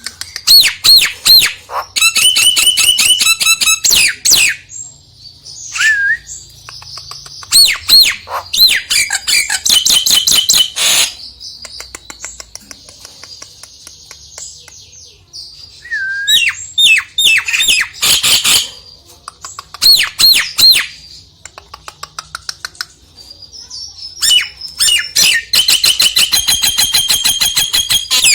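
Nias hill myna calling: loud, sharp whistles and fast runs of repeated notes in four bouts, with short pauses between them.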